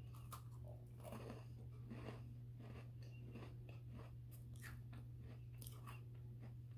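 Faint crunching and chewing of a crisp chocolate chip shortbread cookie, bitten near the start and then chewed in many small, irregular crunches, over a steady low hum.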